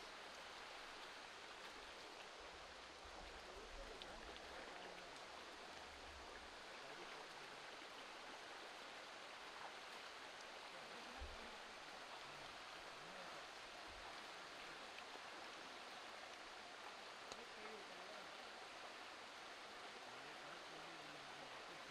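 Shallow forest stream rushing steadily over stones, a constant faint rush of water.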